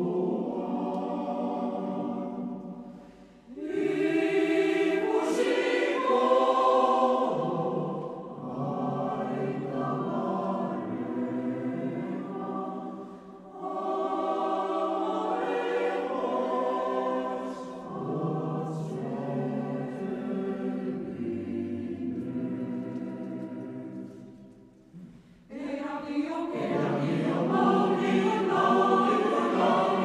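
Choral music: a choir singing long held phrases, with short breaks between phrases about every ten seconds.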